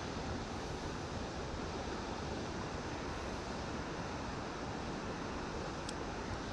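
Steady rush of fast-flowing water in a rain-swollen creek, with one faint click near the end.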